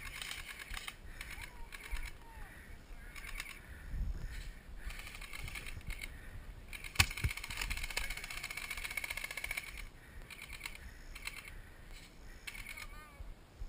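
Leaves and brush rustling against the player and camera as they push through undergrowth, with scattered dull thumps and one sharp click about seven seconds in.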